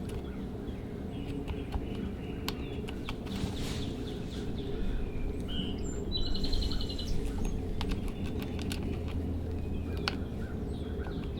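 Small birds chirping in the background, with a quick trill about six seconds in, over a steady low background rumble and a few light clicks.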